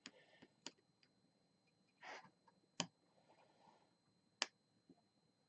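Faint, sparse sharp clicks and one short scrape, about four clicks in all with the loudest near the middle and later: a tool working at the plastic case of a LiFePO4 battery being pried open.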